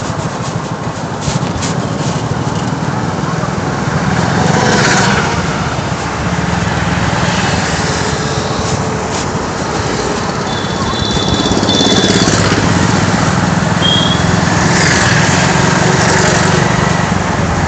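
Motorcycle riding along a busy road: steady engine hum under a rush of wind and traffic noise, heard from the bike itself.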